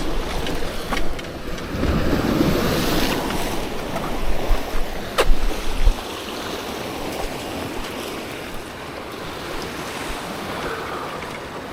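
Ocean surf washing against shore rocks, with wind buffeting the microphone; it surges loudest over the first six seconds, then settles to a steadier wash. A single sharp click about five seconds in.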